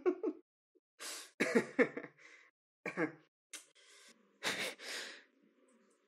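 A man coughing and exhaling in short breathy bursts, about six of them with pauses in between.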